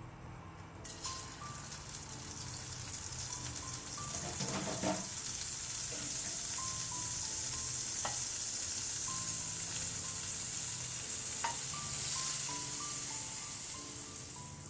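Pancake batter frying in butter and oil in a hot pan. The sizzle starts abruptly about a second in and grows louder, with a few light clicks. Background music plays a plinking melody.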